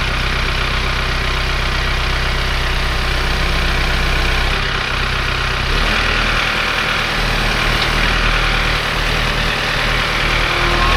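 An engine idling steadily, its low note changing a little over halfway through.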